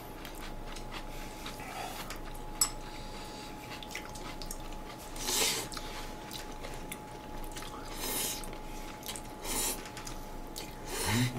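Noodles (spaghetti carbonara) slurped from a bowl with chopsticks: three short slurps in the second half, with soft chewing in between. A single sharp click comes about two and a half seconds in.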